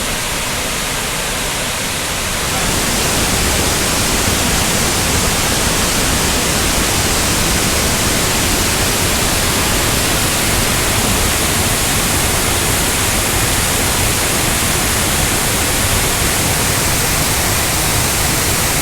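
Waterfall at the base of Yellowstone Falls: a steady, dense rush of falling water, growing louder about two and a half seconds in.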